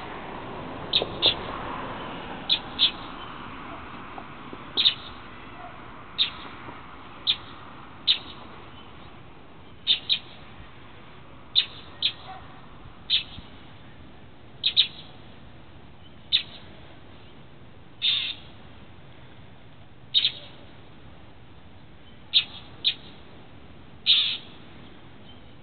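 Northern mockingbirds giving short, sharp scolding calls, one every second or two, mobbing a cat.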